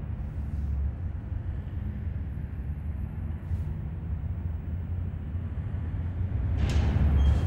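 Old lift running with a steady low rumble, and a louder noisy swell near the end.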